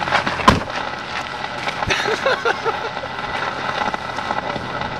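Camcorder handled with a sharp knock about half a second in, then steady gusty wind buffeting and crackling on the microphone.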